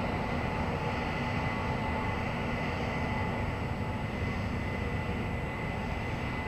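Corn-harvesting machinery running steadily: a continuous low drone with a few constant whining tones above it.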